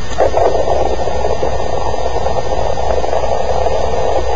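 Steady rushing, bubbling water noise picked up by a camera half-submerged in lake water, heard muffled through the waterlogged camera.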